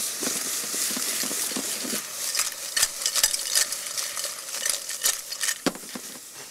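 Clams sizzling in a hot pan of olive oil and white wine, hissing with steam as they are stirred, with a quick run of clicks and clatters through the middle.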